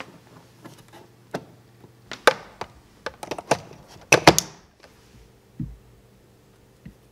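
Plastic clicks and knocks of a mains power cable being plugged into a 3D printer's power inlet and into a power strip, the loudest clatter about four seconds in, followed by a dull thump and a few softer clicks.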